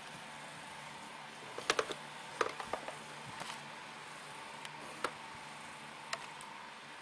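A small cardboard box handled and set down on a tile floor. A cluster of sharp taps and clicks comes about two seconds in, then a few single clicks, over a steady hiss.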